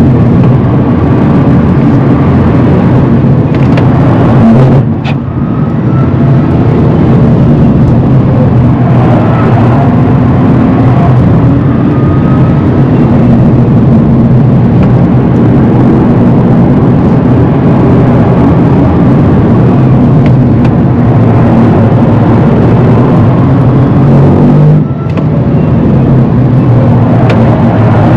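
Rimac Nevera electric hypercar driven hard on track, heard from inside the cabin: loud, steady tyre and road noise with a faint high electric-motor whine. The noise dips briefly twice, about five seconds in and near the end.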